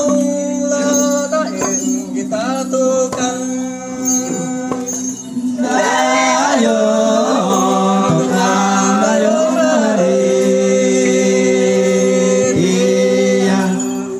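Singing over instrumental music that holds a steady low drone, louder and fuller from about six seconds in.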